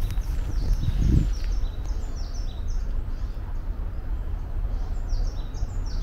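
Small songbird singing a rapid string of short, high, falling notes, pausing briefly past the middle, over a steady low rumble.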